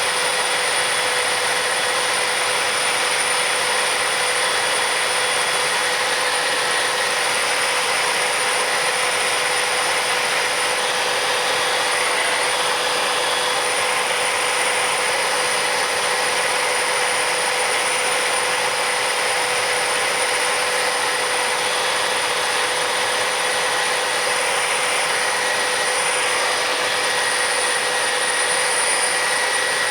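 Sikorsky S-58T helicopter's twin-turbine engine and rotor running steadily on approach: a constant high turbine whine over a broad, even rush of noise.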